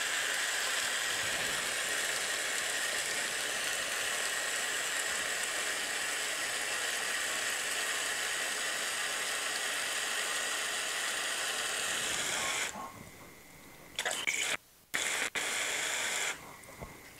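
Tap water running steadily from a lab faucet into a plastic bowl, shut off about 13 seconds in, followed by two short spurts.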